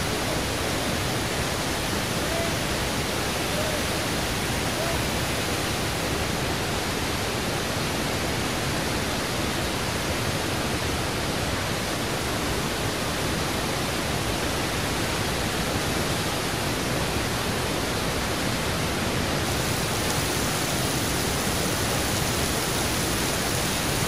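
Waterfall: a steady, even rush of falling water, heard close up, turning a little brighter and hissier in the last few seconds.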